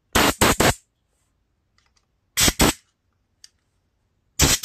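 Compressed air from an air-hose blowgun fired through the passages and jets of a small Briggs & Stratton carburetor in short hissing blasts, three quick clusters about two seconds apart. Air pushes the loosened dirt and carb cleaner out of the jets.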